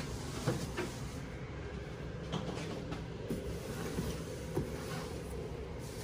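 Steady low room hum with a few light knocks and clicks scattered through it.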